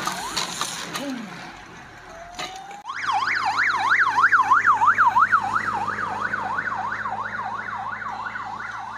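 Siren on a blue-lit escort motorcycle. It winds up about two and a half seconds in, then switches to a fast yelp of about three rises and falls a second. The yelp is loudest soon after it starts and slowly fades as the motorcycle rides past, over the steady hum of its engine.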